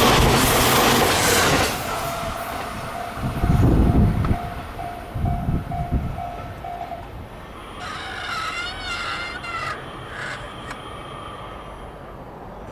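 The tail of a Chuo Line limited express Azusa train running through a level crossing, its wheel and rail noise dying away about two seconds in. The crossing's electronic warning bell keeps dinging about twice a second and stops about seven seconds in, leaving quieter background with a brief wavering tone near the end.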